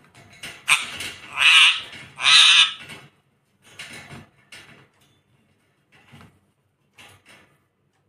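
Indian ringneck parakeet giving two loud, harsh squawks about a second and a half and two and a half seconds in, among softer short rustles and taps as it clambers and flutters.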